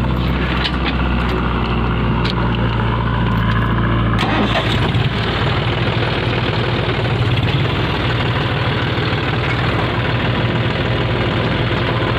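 Tractor engine running close up, loud and continuous. About four seconds in, its steady hum changes abruptly to a rougher, more uneven chugging.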